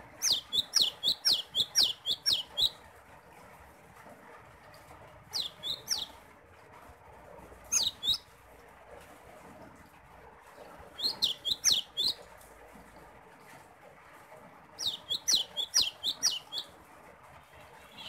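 Cinereous tit (gelatik batu) calling in bouts of rapid, sharp, high notes. There are five bouts: a long one at the start, short ones at about five and eight seconds, one at about eleven seconds, and another long one near the end.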